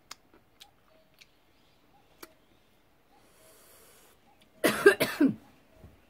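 A woman coughs loudly about twice in quick succession near the end, after a few faint small clicks.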